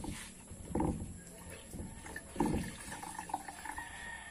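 Water splashing and sloshing twice, about a second in and again a little past the middle, while a car is washed by hand with a wet rag.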